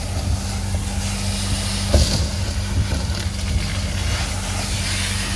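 Dryer-vent cleaning vacuum running steadily, a motor hum under a rushing suction hiss, with one short knock about two seconds in.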